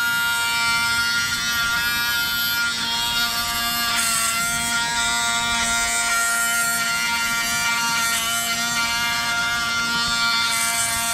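Cordless Dremel Lite rotary tool whining at a steady speed while its round sharpening bit grinds a chainsaw chain's cutter tooth. A high rasping hiss from the bit on the steel swells about four seconds in and again near the end. The pitch dips slightly now and then as the bit bears on the tooth.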